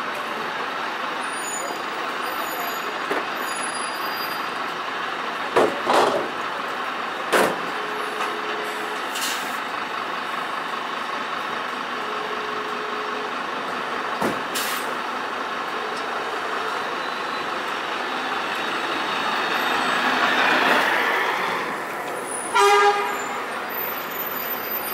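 Scania Citywide hybrid city bus at a stop amid street traffic, with a few sharp air hisses and knocks, two short beeps, then a swell of noise as it pulls away. A short horn toot sounds near the end.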